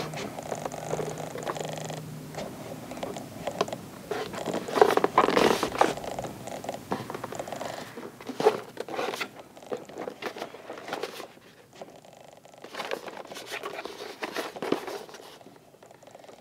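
Hands handling and turning over a cardboard toy box, with fingers rubbing and scraping over its surface and light taps and clicks as it is gripped and shifted.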